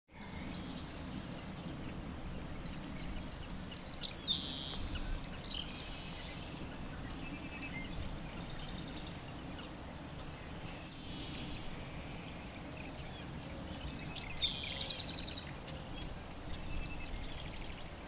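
Birds calling, with several clusters of high chirps and quick trills over a steady low background hum.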